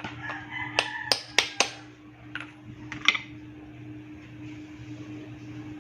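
Metal parts and hand tools clinking and tapping: a quick run of sharp clinks in the first two seconds and two more near three seconds in, over a steady low hum.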